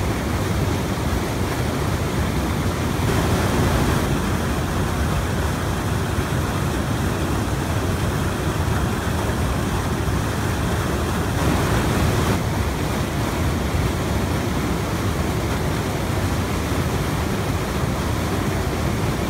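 River water pouring over a rocky ledge in a fast, foaming cascade: a loud, steady rushing roar that swells briefly twice.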